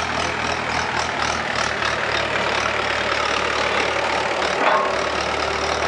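Farm tractor's diesel engine running steadily as the tractor pulls a land roller over prepared ground.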